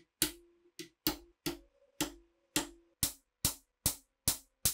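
A hammer striking a steel pin punch about a dozen times, two to three blows a second, several with a short metallic ring, to drive a rusted pin out of the muzzle end of a PPS submachine gun's barrel shroud.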